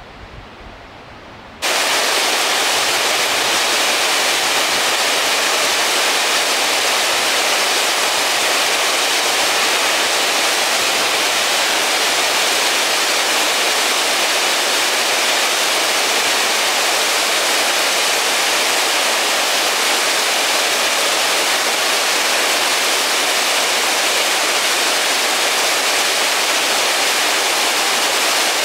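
Water rushing in a loud, steady, even stream, as from a waterfall or spillway. It cuts in abruptly about a second and a half in, after faint outdoor air.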